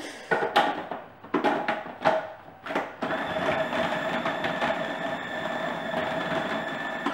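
A few knocks and clatters, then about three seconds in a food processor with a plastic blade starts and runs steadily for about four seconds, a motor whine with a steady hum, cutting cold lard into flour and sugar for pastry. It cuts off suddenly at the end.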